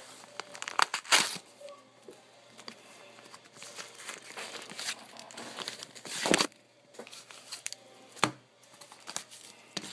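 A mail package being torn open by hand: irregular rips and crinkling of the packaging, with sharper tears about a second in, around six seconds in and again near eight seconds.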